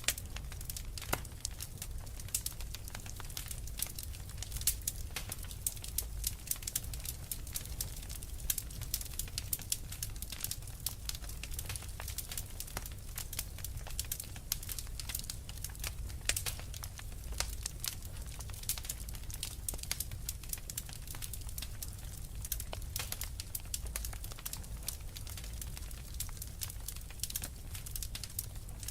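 Fire in a fireplace crackling: many small, irregular pops and snaps over a steady low rumble.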